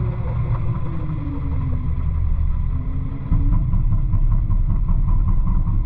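CAT 908M compact wheel loader's diesel engine running, heard from inside the cab, with a whining tone that dips and then rises in pitch; the engine gets louder about halfway through as it works harder.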